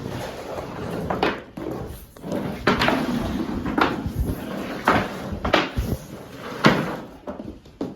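Irregular knocks, bumps and scraping from someone working in an attic, with about ten sharp knocks spread unevenly through it.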